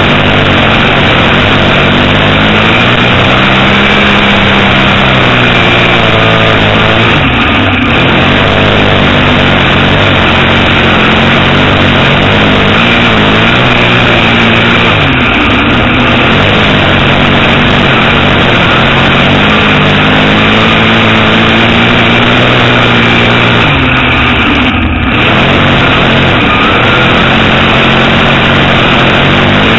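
Dirt Modified race car's V8 engine at full racing speed, heard from inside the cockpit. Its pitch climbs along the straights and drops briefly three times as the throttle is lifted for the turns.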